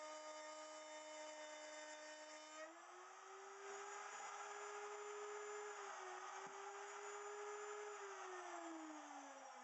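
Router in a router table running with a steady high whine. Its pitch steps up about three seconds in, and near the end it is switched off and winds down in a falling whine.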